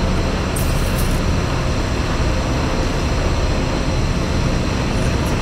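Semi-truck's diesel engine running steadily while the rig creeps through a lot, heard from the cab. There is a brief high hiss about half a second in.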